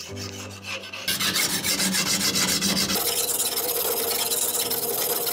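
A steel Damascus knife blade is ground back and forth on a diamond sharpening plate, a fast, steady rasping scrape that grows louder about a second in. The edge is being ground down to remove a large chip.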